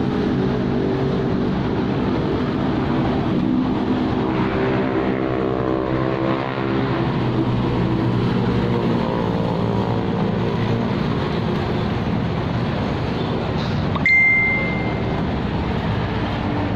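Road traffic: the steady hum of car and motorcycle engines passing on a busy city boulevard. A single bright bell-like ding sounds about fourteen seconds in.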